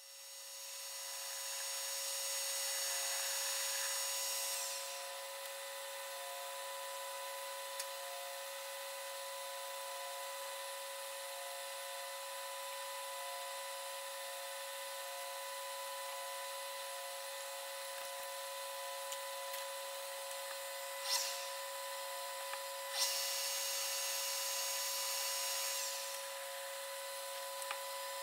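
Metal lathe drilling out a steel stub shaft held in its chuck, with a steady machine whine throughout. The high cutting hiss grows louder for a few seconds at the start and again about two-thirds through, as the drill is fed in from the tailstock.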